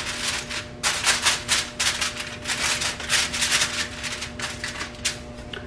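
Aluminum foil crinkling and crackling as it is pressed and crimped tightly around the rim of a baking pan, in quick uneven crackles that thin out near the end.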